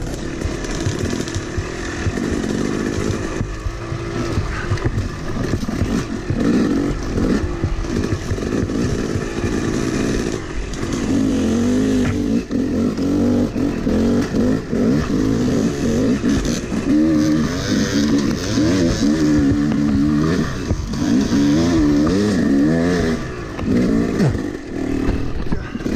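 Yamaha YZ250 two-stroke dirt bike engine being ridden hard over rough trail, its pitch rising and falling rapidly as the throttle is opened and closed again and again.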